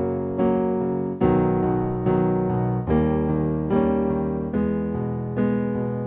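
Electric piano music: sustained chords struck about once every second, each fading slowly before the next.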